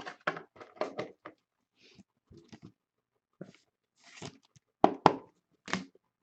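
Trading cards and their plastic packaging being handled: irregular crinkling and rustling, with a couple of sharper crackles about five seconds in.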